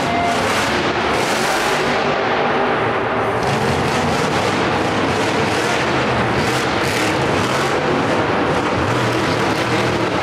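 Monster truck's supercharged methanol V8 running loud and rough under throttle as the truck drives across the dirt, with brief sharp cracks cutting through it now and then.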